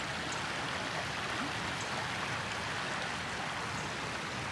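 Shallow creek running over sand and stones, a steady, even rush of flowing water.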